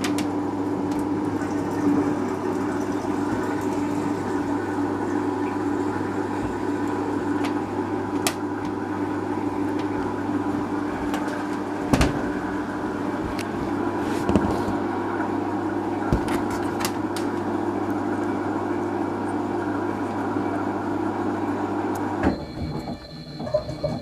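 A steady machine hum with a few light clicks and taps as a small microswitch and multimeter probes are handled. The hum stops suddenly near the end.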